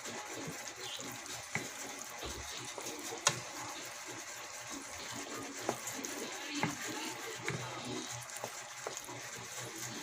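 Wooden spoon stirring and tossing spaghetti in a creamy sauce in a pan: wet squishing with scattered light clicks of the spoon against the pan, one sharper about three seconds in.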